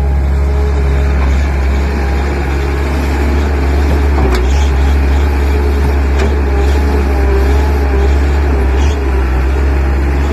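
Tracked hydraulic excavator's diesel engine running steadily as the machine digs and swings a bucket of soil, with a couple of faint knocks from the work.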